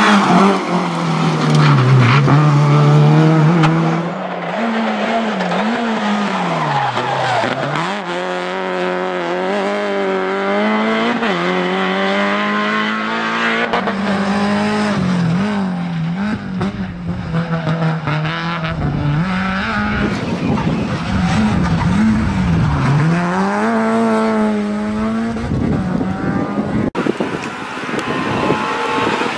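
Renault Clio rally car's engine revving hard as it passes at speed, its pitch climbing and dropping again and again through gear changes and lifts, in a series of separate passes one after another.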